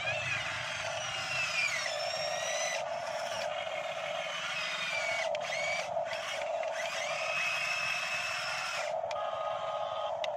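Small electric motors of radio-controlled model excavators whining as the boom and bucket work, the pitch gliding up and down as the controls are moved over a steady hum that breaks off briefly a few times.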